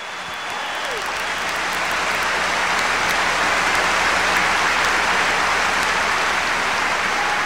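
A large audience applauding, swelling over the first couple of seconds and then holding steady.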